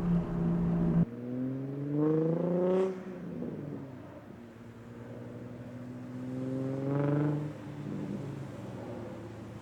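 2004 Infiniti G35's VQ35DE V6 through a straight pipe with the muffler deleted. A loud steady drone cuts off abruptly about a second in, then the engine revs up twice, each rise in pitch dropping back afterwards.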